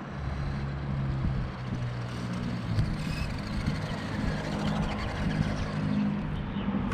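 A steady, low engine-like hum from a running motor vehicle.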